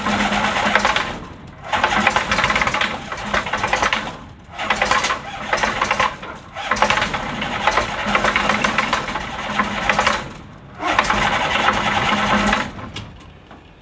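Rotax 912S flat-four aircraft engine of a Kitfox being cranked on its electric starter in several long spells with short breaks, nearly catching but not starting, then stopping about 13 seconds in. A cold hard start: the engine almost went, which the owner says typically leaves it flooded.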